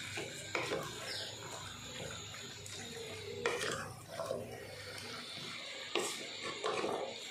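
Wooden spatula stirring raw chicken pieces in a thick masala and yogurt mix in a stainless steel pot, a wet mixing sound with a few sharp knocks of the spatula against the pot.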